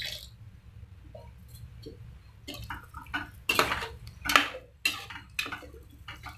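Water poured into a kadai of sautéed vegetables, then a steel ladle stirring and scraping against the pan, with about seven separate clinks from about two and a half seconds in.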